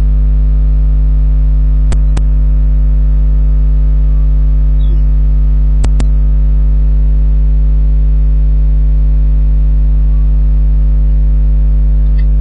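Loud, steady electrical hum with evenly spaced overtones, broken twice by a quick double click of a computer mouse, about two and six seconds in.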